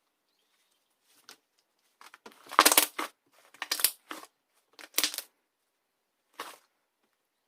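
Iceberg slime's dried, crusty surface crackling and crunching as it is pressed and squeezed by hand, in about five separate crunches with the loudest a couple of seconds in.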